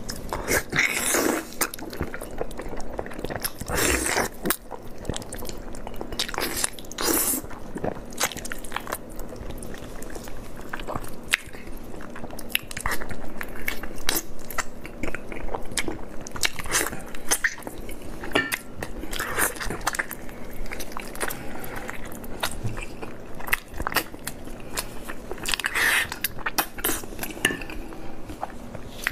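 Close-miked, wet biting and chewing of sticky braised pork meat torn off the bone, with irregular mouth smacks and clicks throughout.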